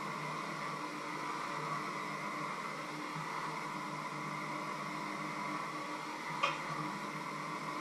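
Steady fan-like hiss with a faint hum, and a single sharp click about six and a half seconds in.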